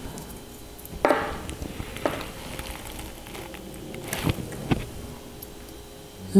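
Steel bicycle spokes clicking and ticking against one another and the hub flange as they are handled and pulled out of a rear hub, a few separate light clicks.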